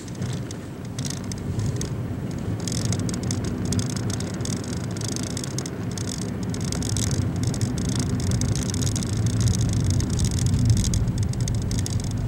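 A car driving, heard from inside the cabin: a steady low rumble of engine and tyres on the road. About three seconds in, a fast, uneven high crackle joins it.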